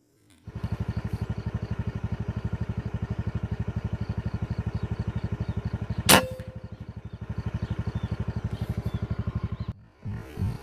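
A single sharp air-rifle shot crack with a brief ring, about six seconds in, over a fast low throbbing pulse of about a dozen beats a second.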